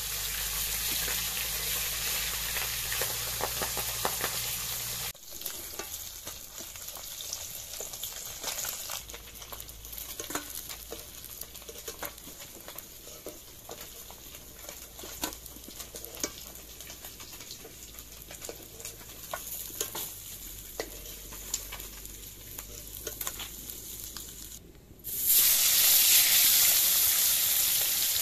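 Pabda fish frying in oil in an iron kadai, sizzling, with a metal spatula clicking and scraping against the pan and a steel plate as the pieces are turned and lifted out. Near the end the sizzling suddenly gets much louder as a fresh turmeric-coated piece goes into the hot oil.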